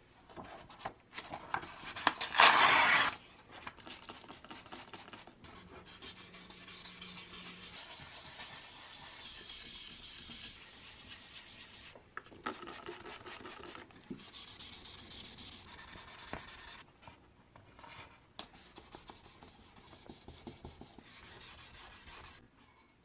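Sandpaper rubbed by hand over the cured epoxy resin end of a wooden spirit level: a continuous gritty rasping in quick strokes, with a few short pauses. This is the rough cast resin being sanded smooth ahead of polishing. A brief louder burst of rubbing comes about two seconds in.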